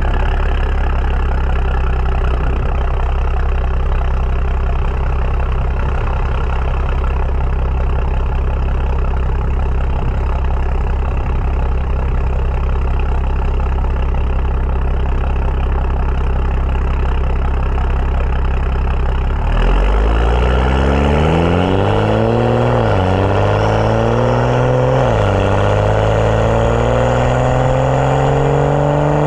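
BMW 335i N55 turbocharged inline-six through a catless downpipe and M Performance exhaust, running steadily at low revs. About two-thirds of the way in, it accelerates hard: the note climbs, drops back twice at upshifts, and climbs again.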